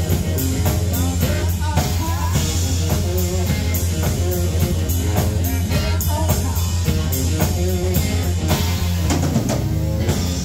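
Live rock band playing: electric guitar, electric bass and a Yamaha drum kit, with a strong steady bass line and regular drum hits. The bass and drums drop out right at the end.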